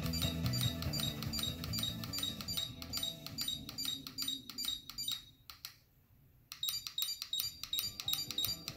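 Music with a regular ticking beat playing through a car CD head unit's speaker. It fades almost to nothing between about five and six and a half seconds in, as the fader is stepped toward the front, then comes back.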